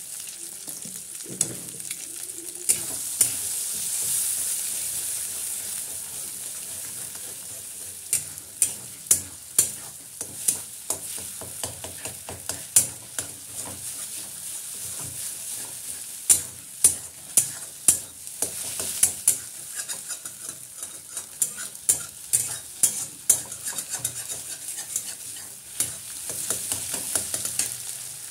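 Eggs sizzling in hot oil in a kadai as they are scrambled with a metal spatula, the spatula scraping and knocking against the pan in quick strokes. The knocks come thickest from about eight seconds in until a few seconds before the end.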